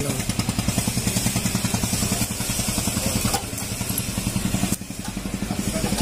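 An engine idling steadily, its low rumble pulsing about eight times a second, with a brief dip near the end.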